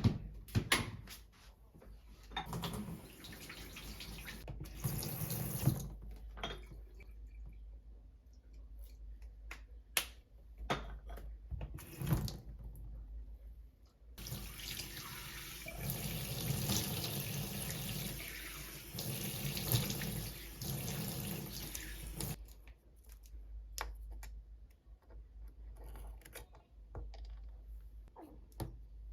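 Water running from a tap into a sink in two spells, a short one a few seconds in and a longer one about halfway through, with light knocks and clicks of handling between.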